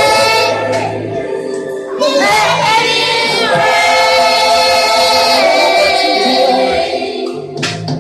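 Gospel worship song sung by a choir with instruments: long held notes, one phrase ending about a second and a half in and the next beginning half a second later.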